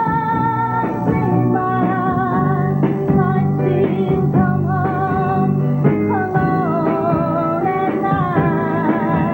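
Female lead vocal singing a pop-rock song over a guitar-led band, holding long notes with a slight vibrato.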